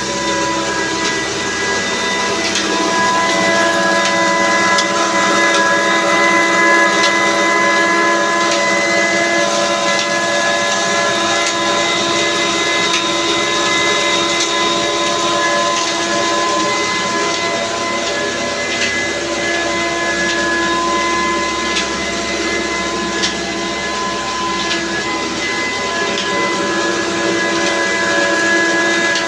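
Belt-driven flour mill running steadily, powered by a 22 hp diesel engine through a line shaft and flat belts, with a steady whine over the machinery.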